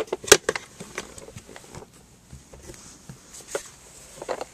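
Hard plastic clicks and knocks from a Beyblade Mobile Beystadium's plastic case being handled and worked open. A quick cluster of sharp clicks comes at the start, the loudest a moment in, then lighter knocks, with a few more near the end.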